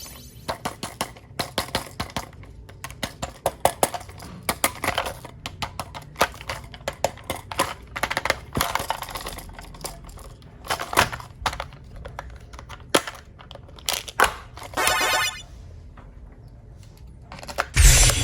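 Toy packaging and plastic toy parts being handled: irregular crinkling with many sharp clicks and taps, and a short rattling buzz about fifteen seconds in.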